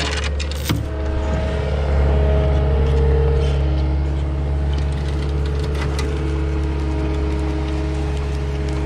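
ASV compact track loader's diesel engine running steadily under load while dragging a log on a chain, getting a little louder about two seconds in. A few sharp metallic clicks near the start.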